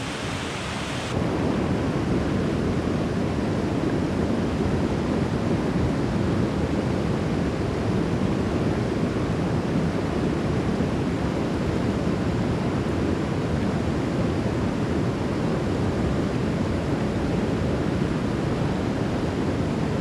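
Steady rushing of water pouring over a rocky waterfall and the rapids below it, an even roar with no let-up.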